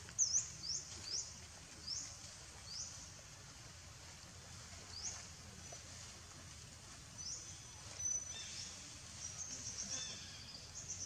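Small bird chirping: short, high, rising chirps repeated about every half second at first, then scattered, with a quicker run of chirps near the end, over a steady low outdoor rumble.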